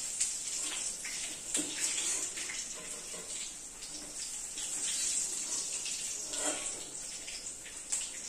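Hot oil sizzling in a wok as fried chicken pieces are scooped out with a perforated ladle, with a few light knocks of the ladle against the pan.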